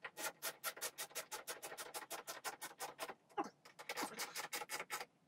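Ratchet wrench clicking fast and evenly, about eight clicks a second, pausing briefly about three seconds in before clicking again.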